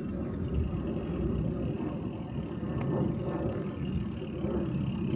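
Steady low rumble of wind buffeting the microphone and the bicycle rolling along, with no distinct events.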